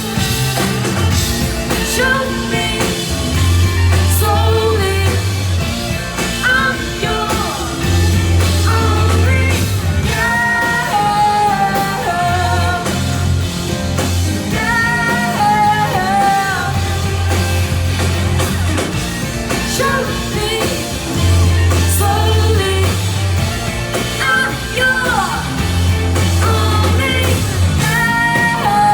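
Punk/noise-pop band playing live: sung vocals over guitar and band, with a heavy low bass note held for a second or two and returning every few seconds.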